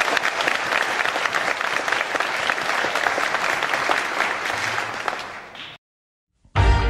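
Audience applauding steadily, a dense clatter of many hands clapping that thins a little and then cuts off abruptly about six seconds in. After a brief silence, music starts just before the end.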